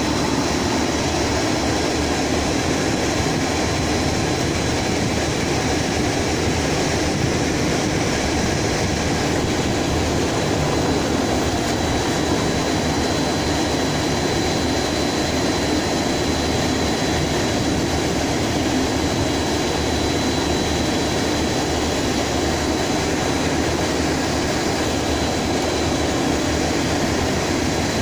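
Industrial fume-extraction system running, its exhaust fans giving a steady mechanical rumble and rush with a faint high whine over it.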